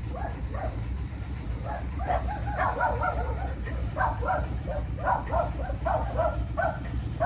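Dogs barking and yipping in quick, repeated barks that grow denser from about two seconds in, over a steady low hum.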